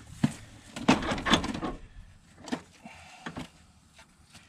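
Tools being handled: a few sharp knocks and clatters of metal, most in the first couple of seconds and a pair near the end, as a breaker-bar pipe and sockets are picked up and moved.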